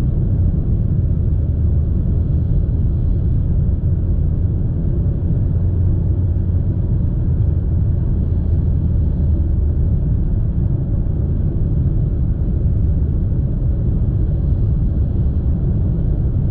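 Steady low rumble of road and wind noise inside a Nissan Sylphy's cabin while cruising on the highway at about 110 km/h, a noise level that is still a bit loud.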